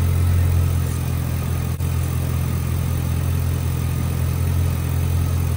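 2006 Chevy Silverado's 5.3L V8 idling steadily while the truck's transmission fluid is checked.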